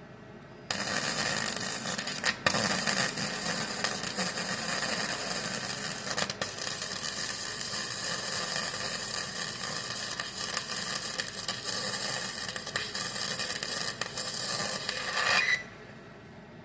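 Gasless flux-core MIG welder arc crackling steadily as a bead is laid on a rusted car body patch. It strikes about a second in and cuts off abruptly near the end.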